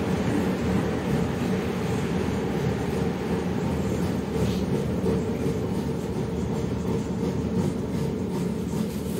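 Cabin noise of a LiAZ-677M city bus under way, heard from the front beside the driver. Its ZIL V8 petrol engine and transmission give a steady low drone, with road rumble from the wet street underneath.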